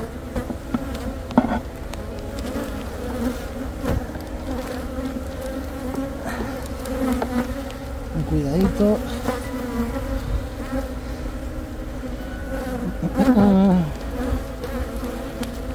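Honeybees buzzing around an opened nucleus hive, a steady hum. It swells louder twice, about halfway through and near the end, with a wavering pitch as bees fly close by. There are a couple of sharp knocks in the first few seconds.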